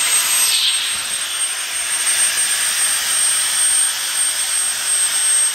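A workshop tool running steadily, giving an even hiss with a thin, constant high whine over it.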